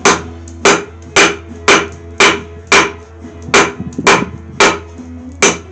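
Rounding hammer striking hot mild steel on an anvil, about two blows a second with a short pause partway through, each blow ringing briefly.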